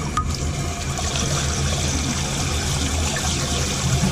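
Water trickling and running in a toilet tank, over a steady low hum.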